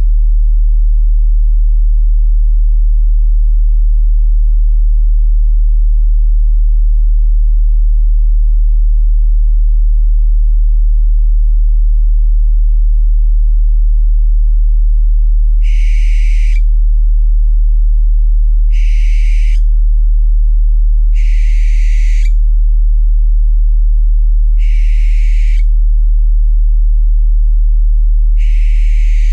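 A steady, loud low sine tone sounds throughout. From about halfway in, an owl gives five harsh screeching calls, each about a second long, spaced roughly three seconds apart.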